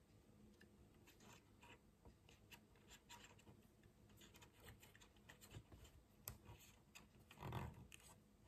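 Very faint small clicks and scratches of hands handling and pressing together the plastic parts of a BMW E36 instrument cluster, with a brief soft thump about seven and a half seconds in.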